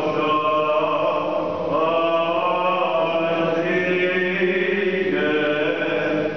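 Byzantine chant: a single man's voice chanting in long held notes that step up and down in pitch.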